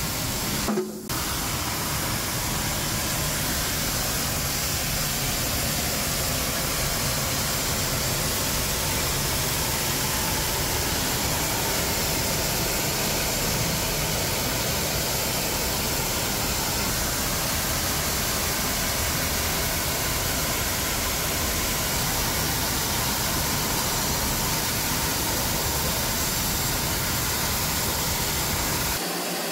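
Oxy-fuel cutting torch on a rail-mounted carriage cutting through steel plate: a steady hiss of the gas jet, broken by a brief dip about a second in.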